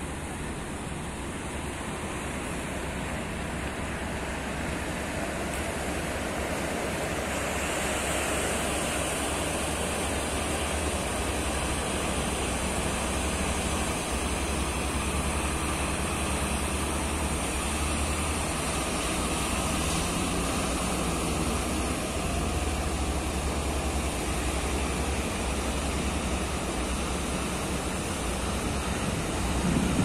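A wooden fishing boat's engine running with a steady low hum, growing louder as the boat comes closer, under the constant rush of breaking surf and wind.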